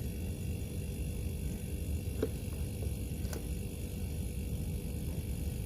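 Single-door mini chiller's refrigeration unit, a newly fitted compressor and condenser fan on R134a, running with a steady low hum and two light clicks near the middle. Running normally after the gas charge.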